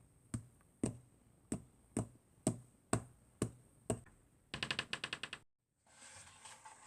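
A series of sharp clicks or knocks, about two a second, eight in all, followed by a quick rattling run of about a dozen faster clicks that cuts off suddenly.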